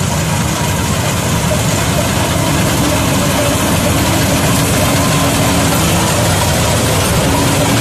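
New Holland combine harvester running steadily as it cuts and threshes standing grain: a loud, even machine din of engine and threshing gear, with a faint steady hum underneath.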